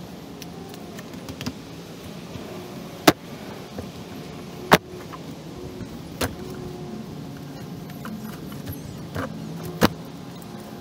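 Tactical nylon gear being handled: four sharp clicks or knocks, spread out, over a low steady hum.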